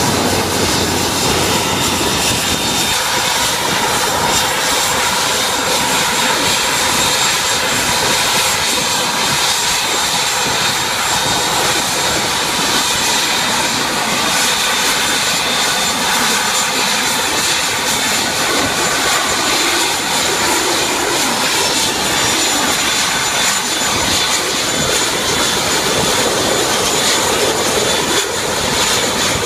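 ATR 72 turboprop engine running on the ground: a steady, loud turbine whine with high-pitched tones over a constant rush of air.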